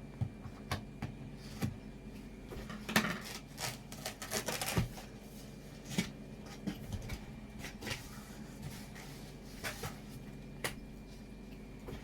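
A cardboard box and its packaging being handled and pulled at: scattered knocks and clicks, with a stretch of rustling and scraping about three to five seconds in.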